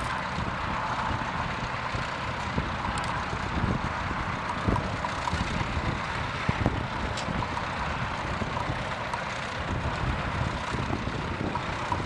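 Vintage tractor engine running steadily under load while pulling a plough through stubble.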